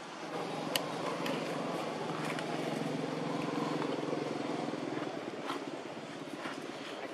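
Steady hum of a motor vehicle's engine that grows louder over the first second and fades after about five seconds, with a sharp click about a second in and a few lighter clicks over it.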